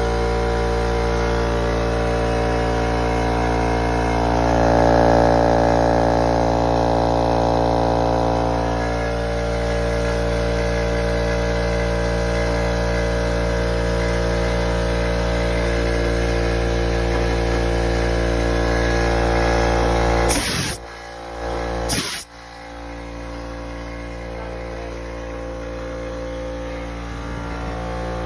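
Husky oil-free air compressor running, a loud steady motor hum with many tones in it. About twenty seconds in there are two short crackling bursts, and after them it runs quieter.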